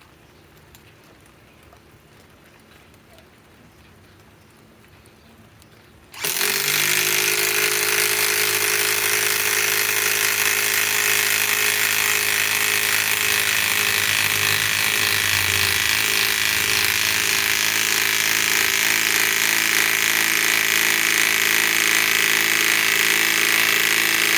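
Milwaukee M18 Fuel compact impact wrench hammering continuously as it drives a 6-inch lag screw into wood. It starts suddenly about six seconds in and runs without a break, after a few seconds of quiet.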